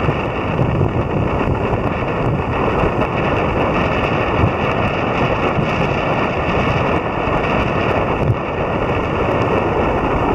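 Strong, steady wind blowing over the microphone, with choppy lake water washing in.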